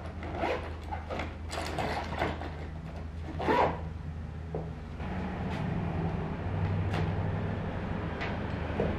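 Keys jingling and a fabric backpack being handled: a quick run of clicks and rustles, the loudest about three and a half seconds in. From about five seconds in comes steadier rustling with a few clicks, over a steady low hum.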